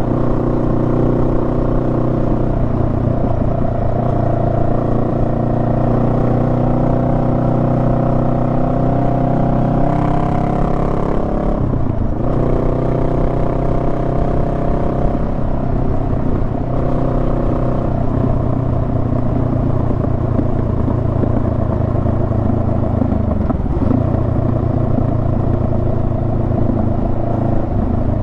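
Honda Rebel 500's 471 cc parallel-twin engine running under way, heard from the rider's position over a low rumble. Its note climbs about ten seconds in, drops abruptly about two seconds later, and dips briefly again a little past the middle.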